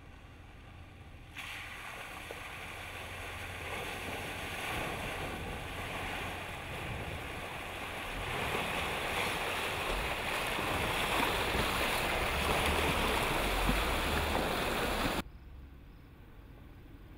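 Jeep Grand Cherokee Trailhawk driving through a muddy water crossing: a rush of splashing, churning water over a low engine sound, growing louder as it goes. It cuts off abruptly near the end, leaving only a quiet low rumble.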